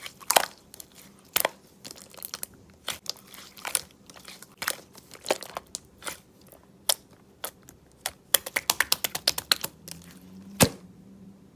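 Mixed slime being squished and stretched by hand, giving sharp clicks and pops at irregular intervals. There is a quick run of clicks about eight seconds in and a loud pop near the end.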